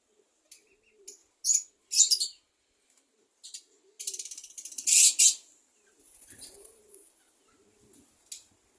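Aviary birds chirping in short high bursts, with a louder flurry about four seconds in lasting just over a second. Soft, low cooing calls recur underneath.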